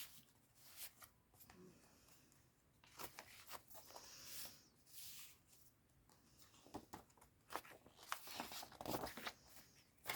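Faint paper rustling and soft clicks as pages and tucked tags of a handmade paper journal are handled and turned, with busier bursts near the middle and end.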